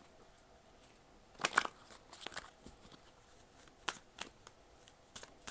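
A deck of oracle cards being shuffled and handled: a few short, crisp card rustles and slaps, the loudest about a second and a half in.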